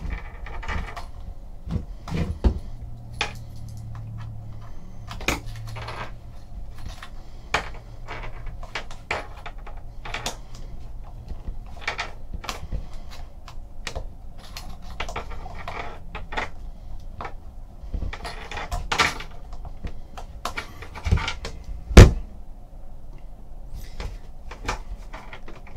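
A key being worked in a small, stiff lock on a box: keys jangling among scattered metal clicks and handling knocks, with one sharp knock near the end, the loudest sound.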